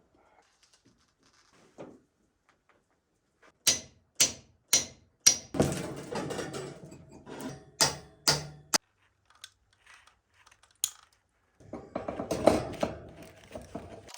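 A series of about eight sharp clicks and knocks from hand work with tools and materials, with two longer stretches of scraping, rustling handling noise and quiet gaps between.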